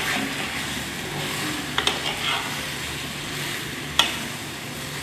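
Tasajo, onion and potatoes sizzling in hot oil in a clay cazuela while a metal spoon stirs them. The spoon clicks sharply against the pot three times: at the start, about two seconds in and about four seconds in.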